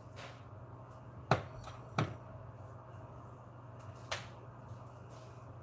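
Quiet room tone with a steady low hum, broken by three light knocks: two close together in the first half, the first the loudest, and a third about four seconds in.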